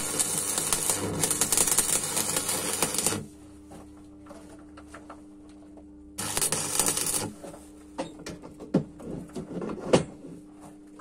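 Stick-welding arc crackling and sputtering steadily for about three seconds, then stopping; a second short arc of about a second follows around six seconds in. A steady low hum sits in the pauses, and a few sharp knocks come near the end.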